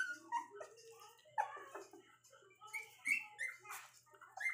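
Nineteen-day-old puppies whimpering, a string of short high squeaky calls.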